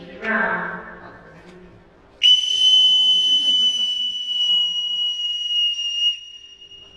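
Boatswain's call (bosun's pipe) blown into a public-address microphone: one steady, shrill held note lasting about four seconds, beginning about two seconds in.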